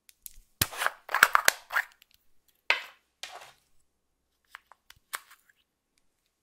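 A plastic strawberry-shaped makeup case being opened with a run of sharp cracks and snaps, then a small metal spatula scraping red makeup out of its pot, with a few light clicks near the end.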